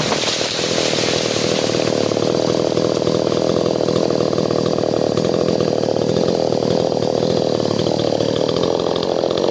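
Two-stroke chainsaw running steadily at high speed, its engine pitch holding even throughout.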